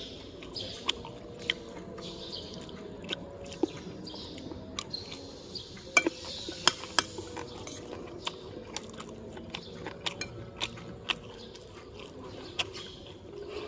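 Someone eating a meal from a plate: chewing, with frequent sharp clinks and clicks of dishes and cutlery, the loudest few about halfway through.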